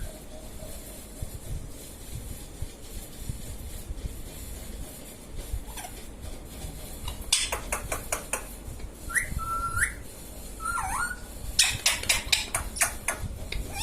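Indian ringneck parrot giving a few short whistles that rise and fall in pitch, about two thirds of the way in. Runs of sharp clicks come just before and just after the whistles.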